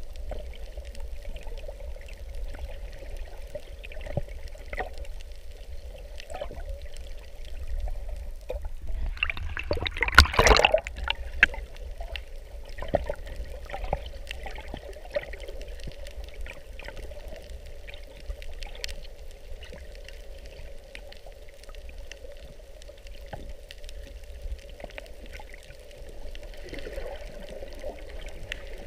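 Underwater sound picked up by a camera in a waterproof housing: a low watery rumble with a faint steady hum and small scattered clicks, and a louder rush of water noise about ten seconds in.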